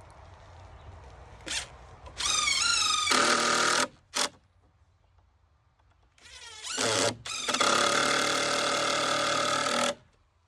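A power drill driving screws into 2x6 stair treads. It makes two runs, each rising in pitch as the motor spins up and then holding a steady whine until it stops; the second run is longer, and a short burst comes between them.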